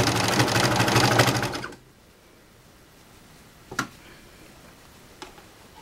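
Janome serger stitching through a terry-towel seam, then stopping about two seconds in. A single sharp click follows a couple of seconds later, with a fainter one near the end.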